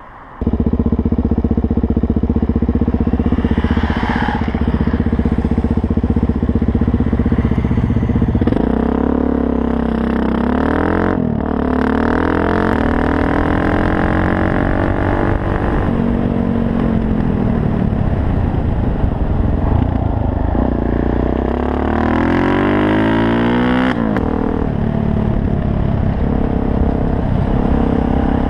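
A 2000 Suzuki DRZ400S single-cylinder four-stroke dual-sport engine running at road speed. It holds a steady pitch for about the first eight seconds, then rises and falls several times with throttle changes.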